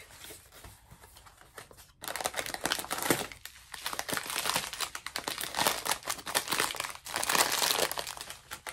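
Clear plastic bag of loose-leaf black tea crinkling as it is pulled out and handled. Only light ticks at first, then dense crinkling from about two seconds in.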